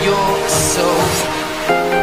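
Background music: an edited-in pop-style track with sustained instrumental tones.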